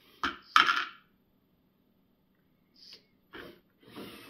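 LEGO robot arm working: several short bursts of motor-and-gear whirring and plastic clatter as the arm moves a payload over to a sorting bin. The loudest burst comes about half a second in, with shorter ones near the end.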